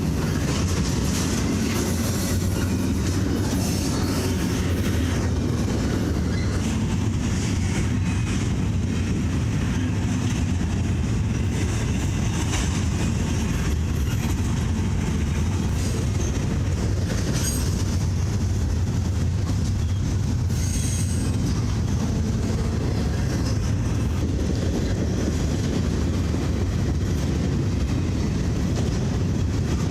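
Norfolk Southern train's cars rolling past in a steady rumble, wheels clacking over the rail joints, with a few brief high wheel squeals.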